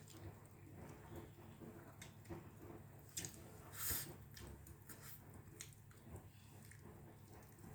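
Faint close-up chewing and wet mouth sounds with scattered small clicks, the louder ones about three and four seconds in.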